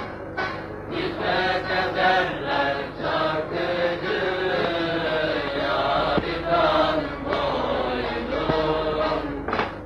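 A group of voices singing together, with long held notes, on an old film soundtrack with a steady low hum underneath.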